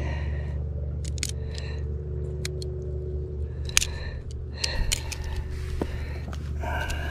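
Metal fishing pliers clicking and snapping as they work a hook out of a small bass's mouth: a scatter of sharp, irregular clicks over a steady low hum.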